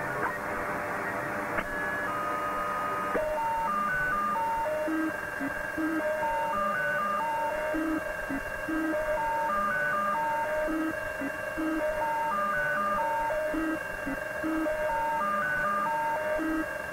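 Shortwave radio receiver tuned near 19.999 MHz, giving static hiss with a steady high whistle and a repeating run of short beeps hopping between several pitches. The beeps set in about three seconds in, after two longer held tones. The uploader takes the signal for a Spooky2 remote transmission.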